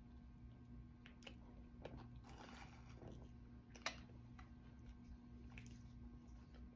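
Near silence over a low steady hum, with faint small clicks and a soft rustle of someone tearing and chewing a bread roll, and one sharp click just under four seconds in.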